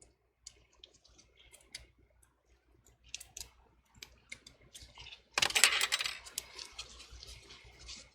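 Close handling of double-sided adhesive strips and small tools: light scattered clicks and taps, then about five and a half seconds in a louder crinkly rustle of the tape's backing being peeled, fading over the next couple of seconds.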